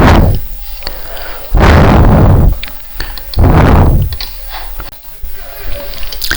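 Three loud rushes of noise, each about a second long and roughly two seconds apart, heaviest in the low end, with faint clicks and rustling between them.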